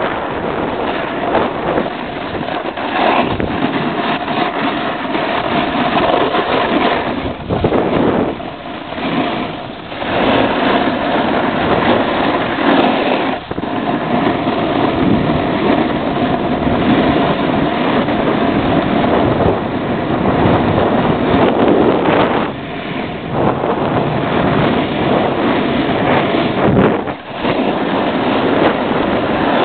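Snowboard sliding and scraping over snow on a run, mixed with wind rushing over the microphone. The noise is loud and steady, with short dips every few seconds as the board changes edge.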